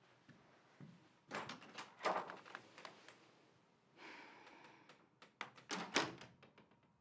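A door being handled and shut, heard as two clusters of knocks and clicks, about a second and a half in and again around six seconds in.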